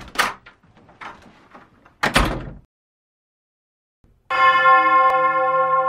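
A door knocking shut with a couple of sharp clicks, then a second knock about two seconds in. After a moment of silence, a sustained bell-like chime with several ringing overtones begins about four seconds in.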